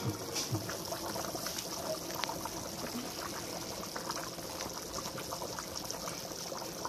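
Thick palm butter soup boiling in a large pot: a steady bubbling with many small, irregular pops.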